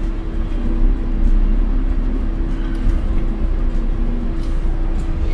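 Motorhome engine and road noise heard from inside the cab while driving: a steady low rumble with a constant hum.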